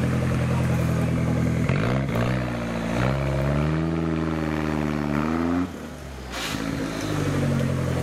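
Engine of a modified off-road 4x4 working through mud: running steadily, then revving up about two seconds in and holding the higher revs. A little past halfway it drops off suddenly, then settles back to a lower steady note.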